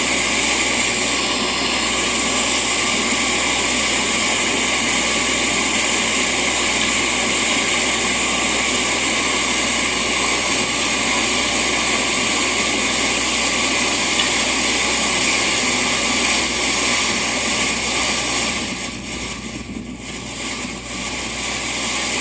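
Steady, loud rushing noise that dips for a couple of seconds near the end.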